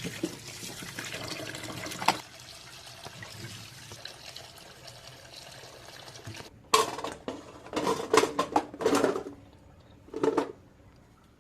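Water running and splashing in a kitchen, with a sharp knock about two seconds in. In the second half come several louder, irregular bursts of sound.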